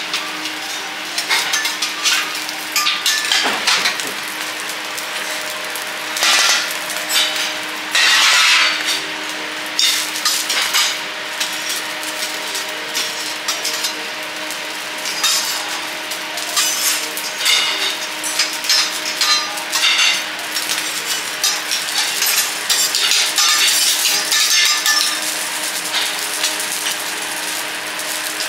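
Vegetables sizzling in oil on a steel teppanyaki griddle, with a metal spatula and fork clicking and scraping against the plate every few seconds. A steady low hum runs underneath.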